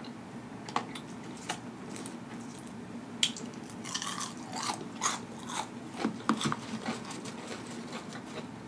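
A person biting and chewing food, with scattered short sharp clicks and crunches that come most often between about three and seven seconds in.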